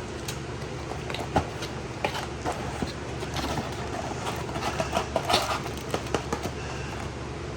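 Plastic cable clips and their packaging being handled, with scattered sharp clicks and taps that come thickest about five to six seconds in, over a steady low hum.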